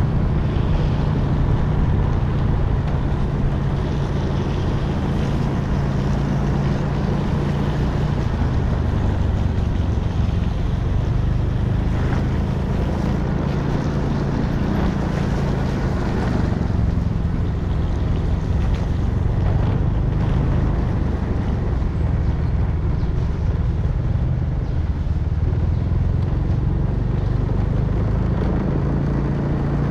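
Small motorcycle engine running steadily under way, its note shifting a little with speed, mixed with wind noise on the microphone.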